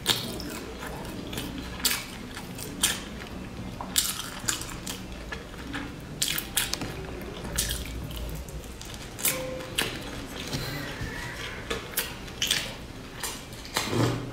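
Close-miked eating of a sticky rice zongzi: wet, sticky chewing and lip smacks, with many sharp clicks of chopsticks. Near the end comes a louder sip from a ceramic bowl.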